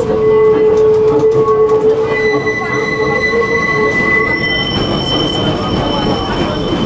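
Heritage tram running on its rails, its steel wheels squealing in steady high tones over the rumble of the running gear. The squeal shifts pitch as it goes, rising to a higher squeal about two seconds in and a higher one again after about four seconds.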